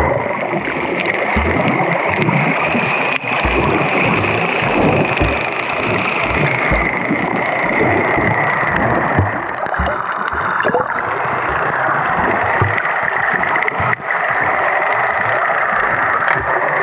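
Muffled rushing and gurgling of water heard underwater through a camera housing while snorkeling, with irregular low thumps and a few sharp clicks.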